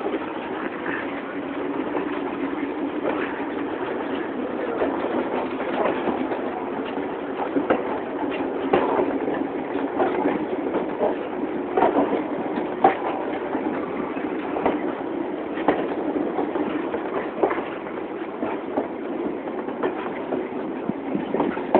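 Passenger train in motion: a steady rolling rumble of the wheels on the rails, with irregular clicks and clanks from the wheels and the coach.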